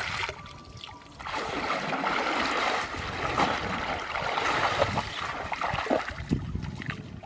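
Shallow muddy water splashing and churning as a woven bamboo fish basket is shoved through it, starting about a second in and going on for several seconds before easing off near the end.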